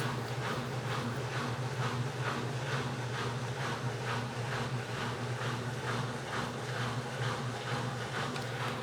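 Midea 12 kg washing machine running: a steady motor hum with a soft swishing beat repeating about two to three times a second.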